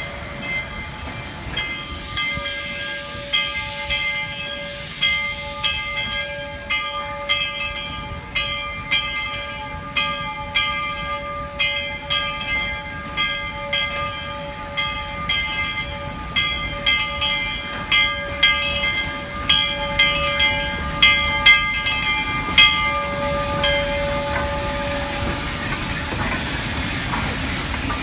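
Steam locomotive's bell ringing at a steady swing, a little over one strike a second, over a continuous hiss of steam. The ringing stops a few seconds before the end, leaving the hiss.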